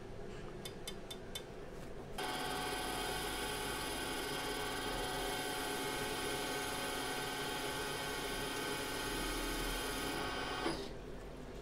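CNC valve seat machine cutting a valve seat in a four-stroke motorcycle cylinder head, coolant flooding the cut. A few light clicks come first. About two seconds in, the machine starts up as a steady whine with several steady tones, and it stops about a second before the end.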